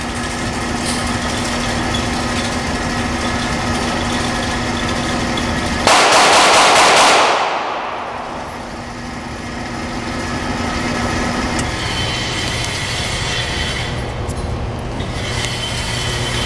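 Electric target-carrier motor running a paper target downrange along its overhead track: a steady hum with a held whine that shifts to a lower note about twelve seconds in. About six seconds in, one very loud bang cuts across it and rings away over a second or so.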